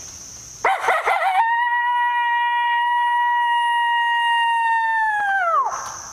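Coyote calling: a quick burst of wavering yips, then one long howl held at a steady pitch for about four seconds that slides sharply down at the end.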